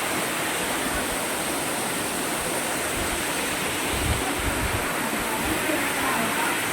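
Vattayi waterfall rushing: a steady roar of falling water.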